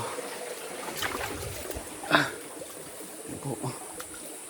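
Stream water trickling and flowing steadily, with a brief sharp sound about two seconds in.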